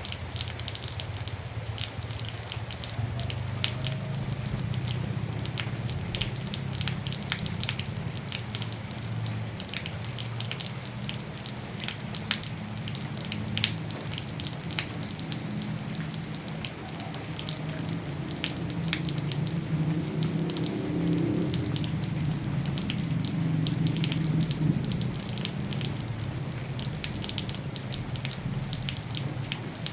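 Rain falling, with many separate drops ticking sharply on a surface over a steady hiss and a low rumble underneath.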